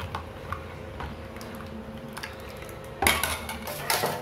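A steel spoon stirring thin wheat-flour dosa batter in a steel bowl, with light scraping and ticking against the metal. Near the end there are two louder clanks of the spoon against the bowl.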